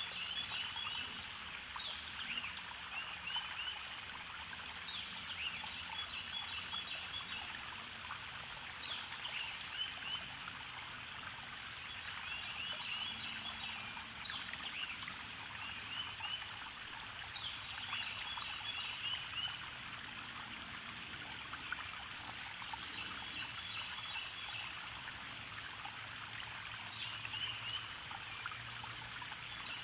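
Steady rush of a flowing stream, with small birds chirping in short repeated phrases every couple of seconds.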